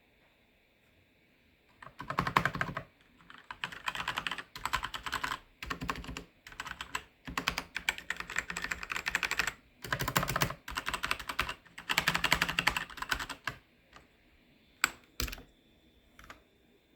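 SPC Gear GK650K Omnis mechanical keyboard with Kailh switches being typed on: fast runs of keypresses starting about two seconds in, in bursts of a second or so, then a few single keystrokes near the end.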